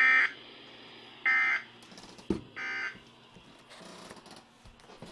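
Three short, loud, buzzy electronic data bursts about 1.3 seconds apart from a weather radio broadcast: the digital alert header that announces an updated warning before the voice message. A click falls between the second and third burst.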